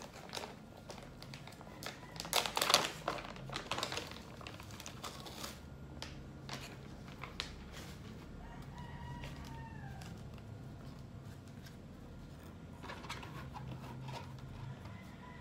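A rooster crows in the background about eight seconds in, one call that falls in pitch at its end. Before it, from about two to five seconds, comes a run of sharp crinkly crackles and rustles from handling, over a steady low hum.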